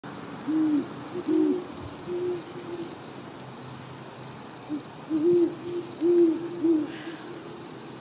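Owl hooting: two runs of low hoots, the second beginning about halfway through, over faint ambient background.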